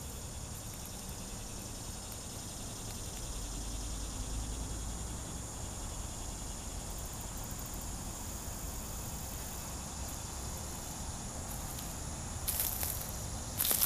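Insects droning outdoors in a steady high buzz, with a low rumble underneath. Near the end come a few short rustling footsteps.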